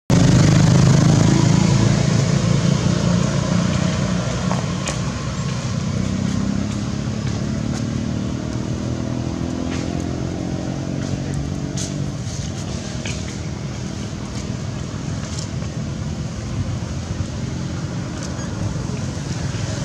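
A road vehicle's engine running: a low, steady drone whose pitch slowly rises and falls around the middle, with a few faint clicks over it.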